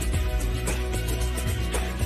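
Background music with a steady beat, about two strokes a second over a sustained bass line.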